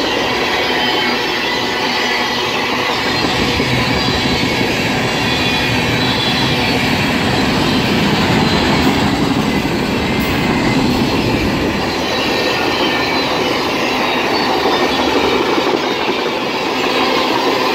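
Freight cars (tank cars and gondolas) rolling past close by: a loud, steady rumble of steel wheels on rail with faint high-pitched wheel squeal.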